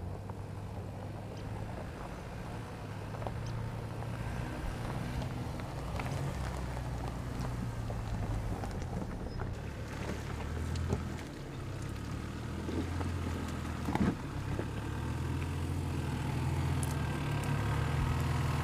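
Toyota Land Cruiser SUV engine running low and steady as the vehicle crawls over a rocky trail, slowly getting a little louder, with scattered light clicks of stones under the tyres and a sharper knock about fourteen seconds in.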